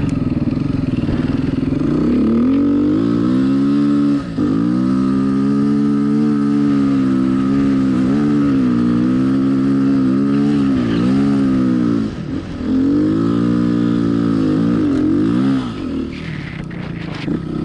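Off-road motorcycle engine heard from on board, pulling hard through sand with its pitch rising and falling as the throttle works, and the throttle briefly shut three times: about four seconds in, near twelve seconds and again near the end.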